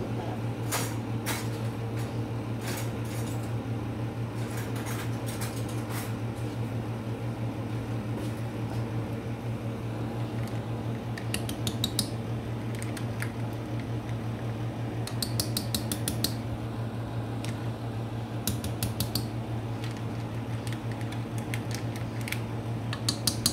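A utensil clinks and scrapes against a metal saucepan in several short runs of quick taps, over a steady low hum.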